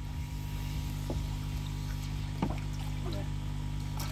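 A steady low hum, with light water sloshing and a couple of faint knocks as a long-handled fish net is worked through a plastic tub of water.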